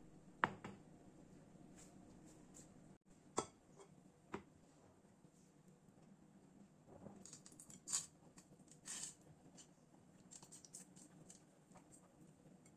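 Chana dal grains tipped and dropped by hand into an empty pressure cooker, giving a faint scattered patter and rustle of grains, after a few light knocks as the glass bowl and cooker are handled.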